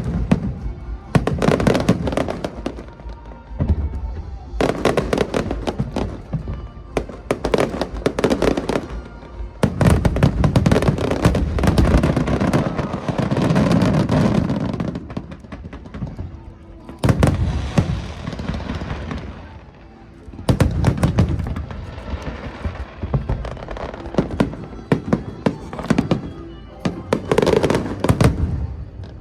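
Fireworks display: aerial shells bursting in volleys of bangs and crackling every few seconds, with a dense, continuous barrage about a third of the way in. Music plays underneath.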